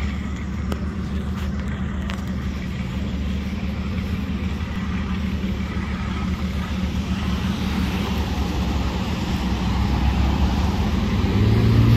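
Motor vehicle engines running with a steady low hum, growing louder toward the end as a vehicle drives past close by.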